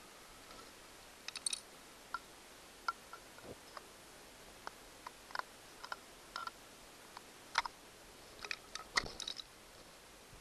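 Irregular small plastic clicks and taps as a screwdriver pries at and turns the battery cover of a digital tachometer/hour meter's plastic housing.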